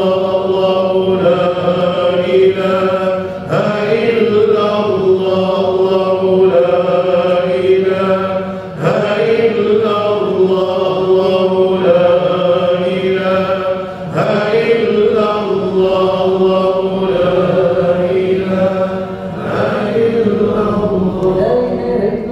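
Group of voices chanting Islamic dhikr together, a melodic phrase repeated over a steady held low note, with a short breath-pause about every five seconds.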